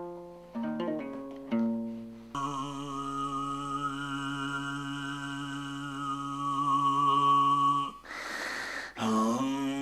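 A few plucked notes on a long-necked lute, then male throat singing: a steady low drone with a whistling overtone held high above it. About eight seconds in, the drone breaks for a noisy breath, then starts again.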